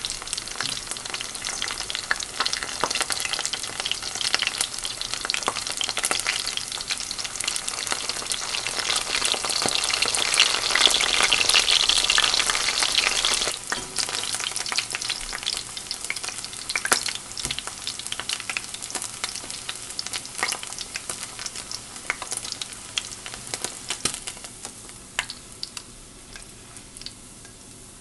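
Coated pieces of game meat shallow-frying in oil in a frying pan: a dense crackling sizzle. It is loudest a little before halfway, then drops off suddenly and grows thinner as the pieces are lifted out with chopsticks.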